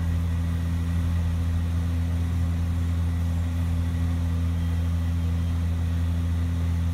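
Steady low mechanical hum of several unchanging low tones, even in level throughout.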